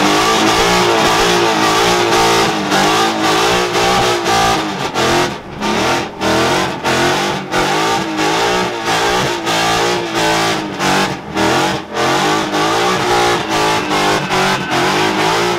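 Ford Mustang engine held at high revs during a burnout, the pitch wavering and the sound cutting out and back in about twice a second, with the rear tyres spinning on wet concrete.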